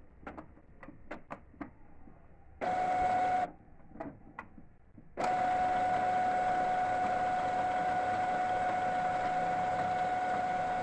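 Epson M2140 ink-tank printer's mechanism during its start-up initialization. A few light clicks come first, then a steady motor whir with one fixed tone. The whir runs for about a second, stops, and starts again about five seconds in, running on steadily.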